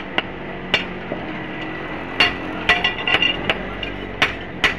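Blacksmith's hand hammer striking an iron axe head on an anvil: about seven sharp strikes at uneven spacing, with a gap of over a second after the first, each followed by a short metallic ring.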